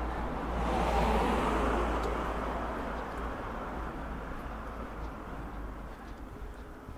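A car driving past on the street: tyre and engine noise swells about a second in, then fades away gradually over the next few seconds.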